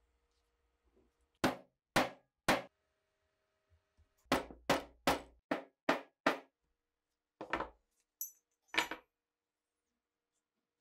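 Mallet striking the top of a steel pricking iron, driving its prongs through thick leather to punch stitching holes. Three sharp knocks, a pause, a quick run of six, then two or three more near the end.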